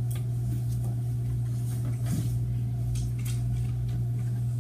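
Steady low hum of room tone, with a few faint rustles.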